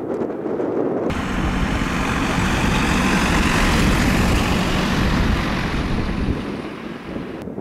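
Boeing 747 jet engines roaring at takeoff power. A sudden change about a second in gives a louder, brighter roar that swells and then fades, ending abruptly just before the end.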